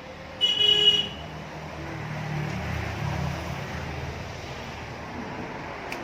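A vehicle horn gives one short toot about half a second in, the loudest sound here, followed by the low rumble of road traffic that swells for a few seconds and fades.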